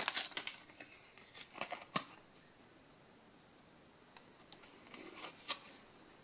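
Stiff Adrenalyn XL trading cards being handled and flipped one by one: short, light clicks and flicks of card stock, several in the first two seconds and another short cluster about five seconds in.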